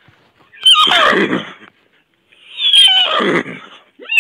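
Animal cries from a sound-effect track played back in a phone video editor: two loud calls, each sweeping down in pitch over about a second, with a third starting at the very end.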